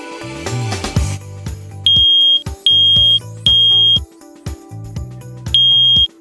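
Combination smoke and carbon monoxide alarm sounding in the three-beep temporal pattern: three loud, high-pitched beeps of about half a second each, a pause, then the next round starting near the end. The three-beep pattern is the standard smoke/fire alarm signal. Background music plays underneath.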